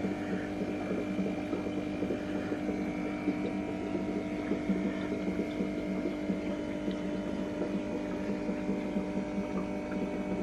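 Aquarium filter pump humming steadily, with water burbling and bubbling.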